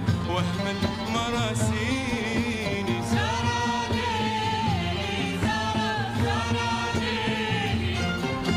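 Gulf Arabic (Khaleeji) song: a solo voice singing a wavering, ornamented melody over instrumental accompaniment.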